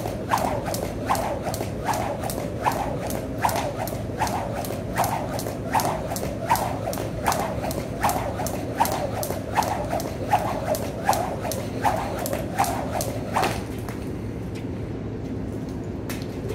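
Jump rope skipping, the rope slapping the floor in an even rhythm of about two and a half slaps a second; it stops for a few seconds near the end, then starts again.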